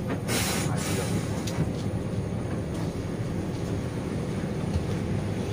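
Steady low rumble of a moving intercity bus heard from inside the cabin: engine drone and road noise with a few faint rattles.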